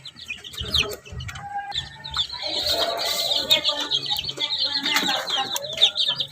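Young chicks peeping, many short high falling peeps that grow into a dense chorus about halfway through, with lower clucking underneath.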